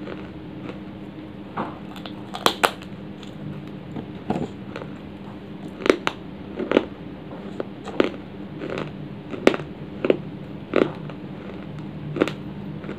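Dry baked clay being bitten and chewed close to the microphone: about a dozen sharp crunches spaced a second or so apart.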